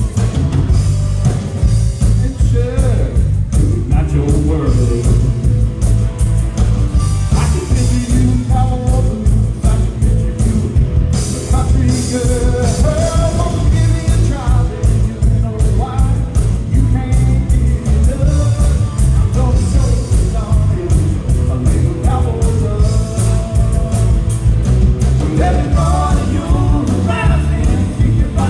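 A live rock band playing a rock-and-roll number, with amplified electric guitars over a heavy, booming low end, a steady beat and a voice singing.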